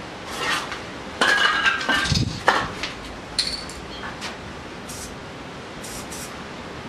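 Montana 94 spray paint can fitted with a pink dot cap, spraying: a loud stretch of spray hiss with clinks and clicks a little over a second in, then several short, high spray bursts.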